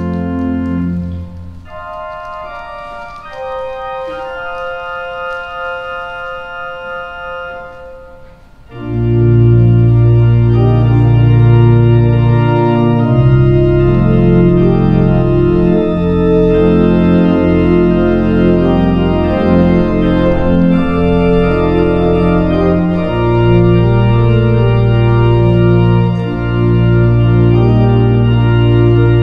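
Organ music for the prelude before worship. A held chord ends about a second and a half in and a softer, higher passage follows. About nine seconds in, the full organ comes in louder, with deep bass notes under moving chords.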